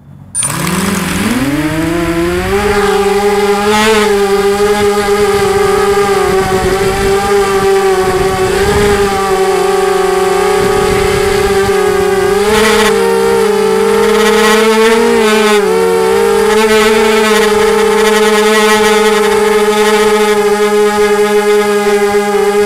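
Brushless motors and propellers of a home-made 250-size quadcopter (Cobra 2204 2300kv motors) spinning up from rest about half a second in, rising in pitch, then a steady whine heard from on board that wavers slightly with throttle changes.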